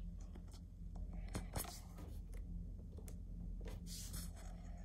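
Faint handling noise: soft rustling and a few scattered small clicks over a low steady hum, from a phone held up to film a tablet screen.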